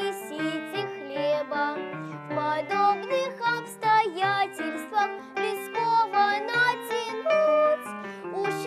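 A young girl singing a song solo, with piano accompaniment.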